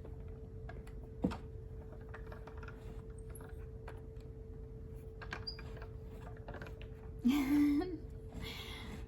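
Hands handling craft tools and paper on a table: scattered light clicks and taps, with one sharper click about a second in and a brief rustle near the end, over a steady low hum. A short hummed vocal sound comes a little before the end.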